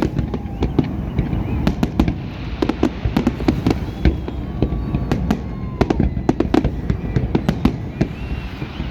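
Fireworks display bursting in rapid, irregular succession: many sharp bangs and cracks over a continuous low rumble of overlapping explosions.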